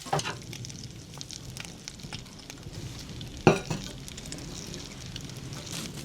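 Food sizzling and crackling in a pan over a campfire, with a sharp knock right at the start and a louder one about three and a half seconds in.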